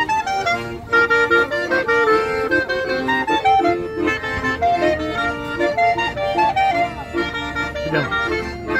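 Two piano accordions and a clarinet playing a Czech song together, a continuous melody over held chords.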